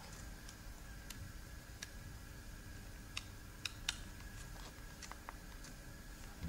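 Faint, irregular small clicks and ticks, a dozen or so, the sharpest pair about a second and a half past the middle, over a low steady hum.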